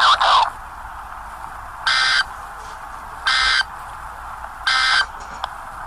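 Emergency Alert System end-of-message data bursts: three short, identical digital squawks of two-tone modem data, about a second and a half apart, closing out a warning broadcast.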